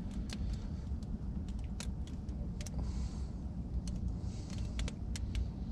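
Handling noise: scattered sharp clicks and two short rustles as hands work a bloodworm bait and yarn over a plastic tub. A steady low rumble runs underneath.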